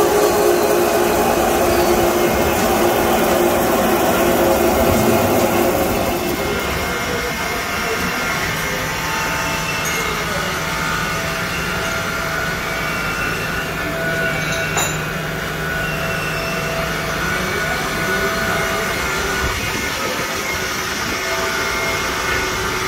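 Eight-spindle flange drilling machine running, its drills cutting through a steel flange with a steady mechanical whine. The noise is loudest for the first six seconds and then drops to a lower steady running sound, with one sharp click about halfway.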